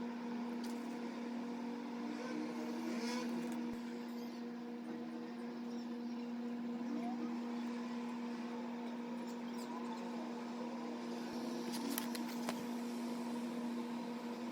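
Steady electrical hum of a running appliance, one constant low tone with fainter higher overtones, with a few faint clicks near the end.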